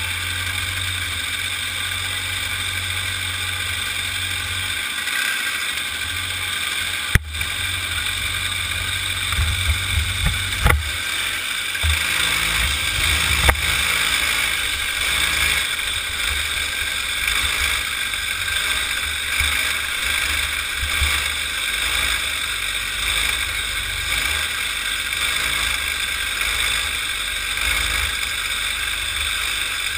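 Small kid kart engine running, heard from a camera mounted on the kart: first idling on the grid, then pulling away and running at speed around the track. There is a sharp knock about seven seconds in and a few more bumps a few seconds later.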